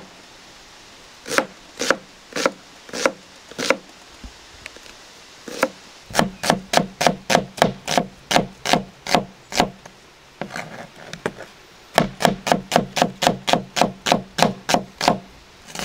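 Knife chopping a peeled onion on a cutting board: a small cleaver-style kitchen knife strikes through the onion onto the board in sharp knocks. A few slower strokes come first, then two quick runs of about four chops a second, with short pauses between them.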